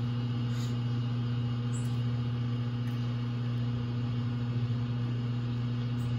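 Steady low hum of a motor or electrical appliance, unchanging in pitch.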